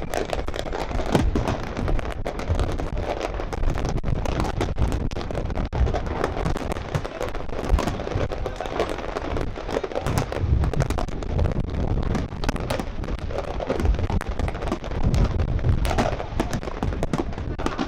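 Aerial fireworks display: a dense, unbroken run of shell bursts, with deep booms and sharp crackling bangs overlapping many times a second.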